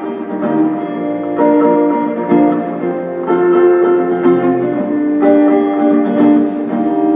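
Acoustic guitar strumming chords in an instrumental stretch of a country-style song, with new strums about every two seconds.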